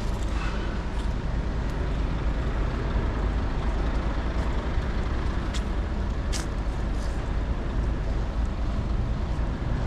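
City street traffic noise: a steady low rumble of passing road vehicles, with a short hiss about six seconds in.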